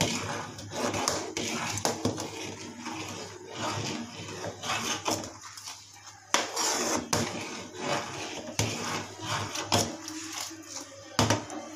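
Steel ladle stirring thick kadhi in a steel pot, with repeated clinks and scrapes of metal against the pot's side and a few sharper knocks, about six and eleven seconds in.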